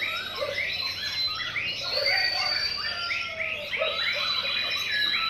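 Many caged songbirds singing at once: a dense, overlapping run of quick chirps and trills, with a few long held whistles.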